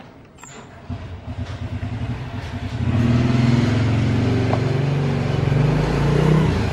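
A motor vehicle engine running close by, pulsing at first and growing louder and steadier from about three seconds in, rising slightly in pitch near the end.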